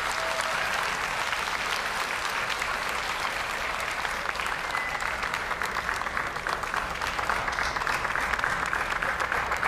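Audience applauding steadily, a dense, even patter of many hands clapping.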